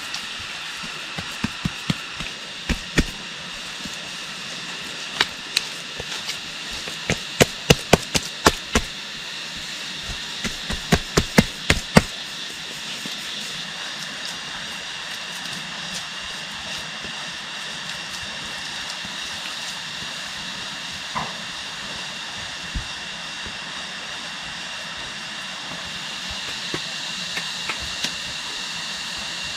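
A run of sharp knocks, many in quick groups of two to four, for about the first twelve seconds, with a few faint single knocks later, over a steady high-pitched background drone.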